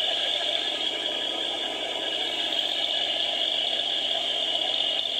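1970 Chevrolet pickup's engine running hard with the rear tyres spinning in a burnout, a steady harsh noise with a constant high whine and little bass.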